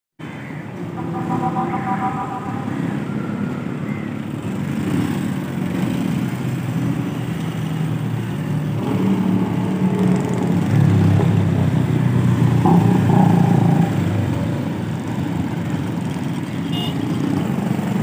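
Street traffic with motorcycle and auto-rickshaw engines passing. One vehicle passes louder from about ten to fourteen seconds in.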